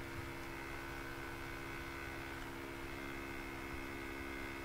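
Steady low electrical hum with faint hiss, the background noise of the recording microphone and computer.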